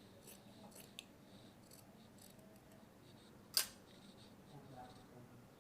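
Tailor's scissors cutting through folded fabric: a run of short, faint snips, with one much louder sharp snap about three and a half seconds in.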